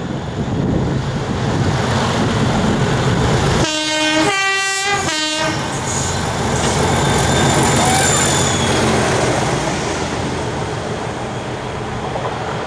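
Class 37 diesel locomotive with its English Electric V12 engine under load, dragging a failed Class 66 past, making a loud continuous noise. About four seconds in, a two-tone horn sounds low, high, low for about two seconds.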